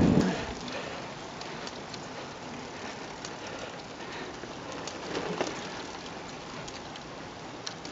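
Road bicycle rolling uphill on coarse tarmac: a steady tyre hiss with scattered small clicks and ticks from the bike.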